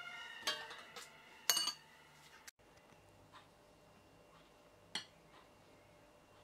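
Metal kitchen tongs clinking against the dishes while chicken is dredged in flour: a few sharp clinks in the first two and a half seconds, the loudest about a second and a half in. Then it goes quiet apart from one light tap about five seconds in.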